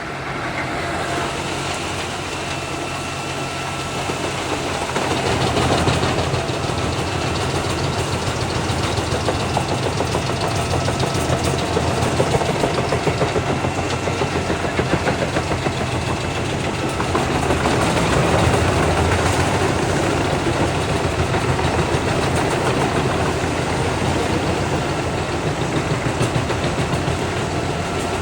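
Large diesel machinery engine running steadily under load, swelling louder about five seconds in and again near the middle.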